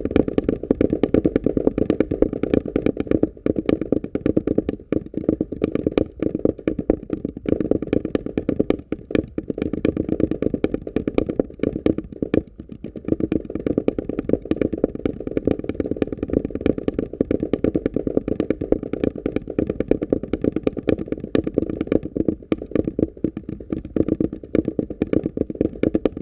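Two prepared DC motors knocking cotton balls against the insides of small cardboard boxes: a fast, uneven stream of soft, hollow knocks on cardboard, dipping briefly every few seconds.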